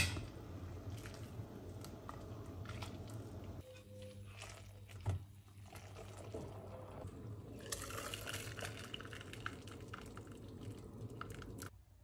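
Noodles being stirred with wooden chopsticks in a stainless steel pot of boiling water: liquid bubbling and sloshing, with light clicks of the chopsticks against the pot and a sharp click at the very start.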